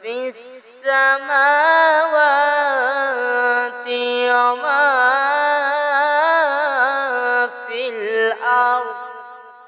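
A single voice chanting Quran recitation (tilawat) in a melodic style, holding long wavering notes. A quick breath comes just after it begins, and the phrase fades away near the end.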